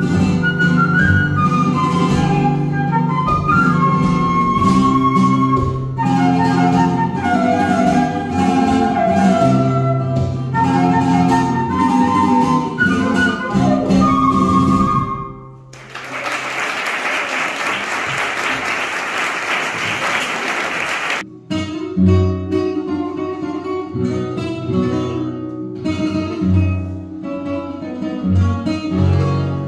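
Concert flute and flamenco guitar playing alegrías together until about halfway, when the piece ends and about five seconds of applause follow. Then the guitar alone begins a guajira, plucking and strumming.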